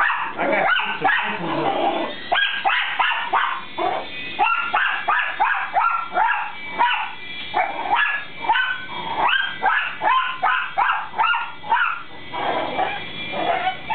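Dog barking rapidly in high-pitched yips, about two to three a second, then stopping near the end: excited by an RC toy helicopter flying around it.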